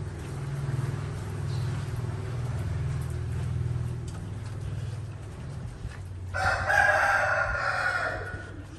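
A loud animal call lasting about two seconds, starting about six seconds in, held at a fairly steady pitch, over a low continuous hum.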